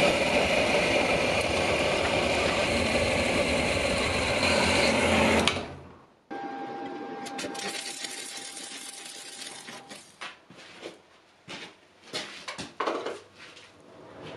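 Metal-cutting band saw running through an iron bar, a loud steady grind that ends abruptly about five and a half seconds in. After a short gap comes the steady crackling hiss of arc welding for about three and a half seconds, then several short, irregular bursts of welding.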